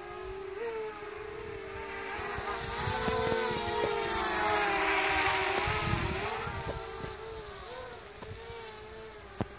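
FPV racing quadcopter's motors and propellers whining, the pitch wavering up and down with the throttle. It grows louder as the drone flies close overhead, peaks about midway, then fades as it moves off. A sharp click comes near the end.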